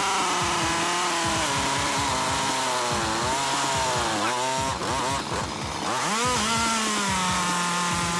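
Stihl chainsaw running at high revs while cutting through a log, its engine pitch sagging and recovering several times as the chain bites, then holding steady near the end.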